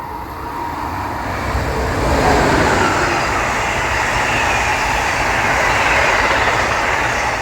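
Train passing at speed close by, a loud rushing rumble of wheels on rail that swells about two seconds in and holds before easing off, with no horn.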